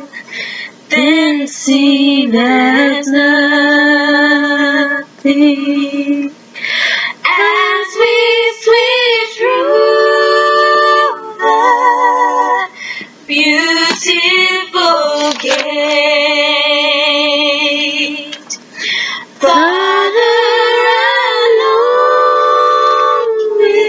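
A woman singing a slow gospel hymn solo and unaccompanied, holding long notes with a wide vibrato, with short breaks between phrases.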